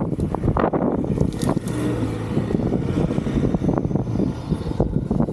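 A four-wheel-drive vehicle driving with its engine running, with frequent short knocks and rattles throughout.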